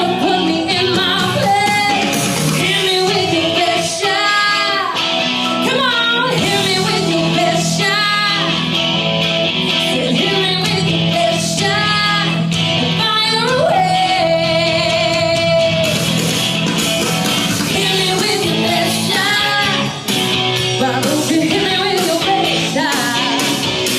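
A woman singing a song over band accompaniment with guitar, holding one long note about halfway through.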